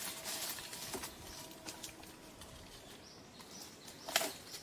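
Leaves and stems rustling as a person pushes through dense undergrowth, with small snaps and one sharp crack about four seconds in.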